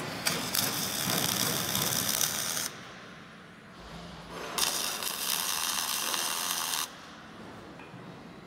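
Arc welding crackling in two bursts of about two seconds each, as a steel end stopper is welded onto a crane runway beam.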